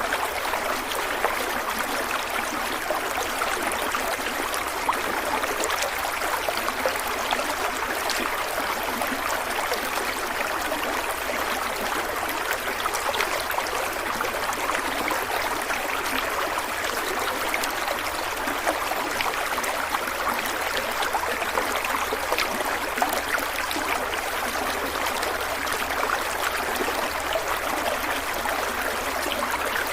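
Small stream of water flowing and trickling steadily, a continuous splashing babble with no change.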